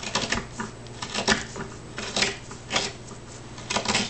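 Hand-held traditional carving tool cutting into a wooden board, about six short scraping cuts at uneven spacing as shavings are pared off.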